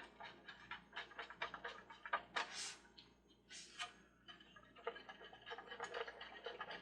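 Small plastic carousel parts being handled and fitted together: irregular light clicks and ticks, with two short scraping rubs a little past halfway.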